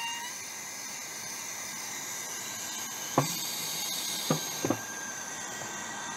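Oxygen hissing steadily from a disposable oxygen bottle into a fermenter, flushing the headspace above the wort, with a thin steady whistle in the hiss. A few light clicks around three and four and a half seconds in.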